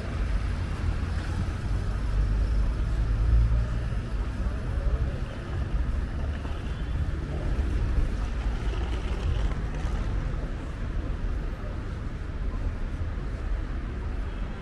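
City street ambience dominated by the low rumble of road traffic, swelling around three to four seconds in as a vehicle passes.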